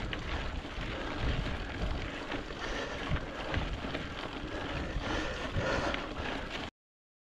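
Wind buffeting the microphone with a rough, steady rumble from a mountain-bike ride; the sound cuts off suddenly near the end.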